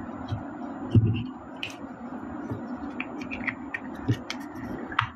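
Small ABS and PVC figure parts being handled and fitted together: a soft thump about a second in, then scattered light plastic clicks and taps as the face plate is pressed into the hair piece. A steady low hum runs underneath.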